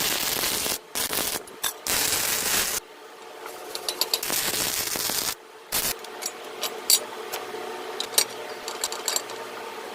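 Welding arc crackling and hissing in several short runs of a second or two each, with brief pauses between them. After about six seconds the arc stops, leaving scattered light clicks and ticks over a faint hum.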